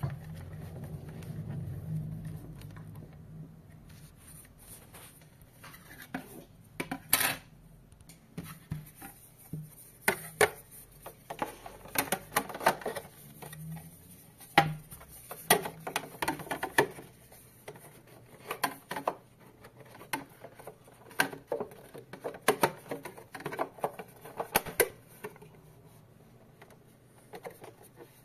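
Hands handling a metal monitor wall-mount arm and its cables: scattered clicks, taps and light clatter of metal and plastic parts, with a low rumble in the first few seconds.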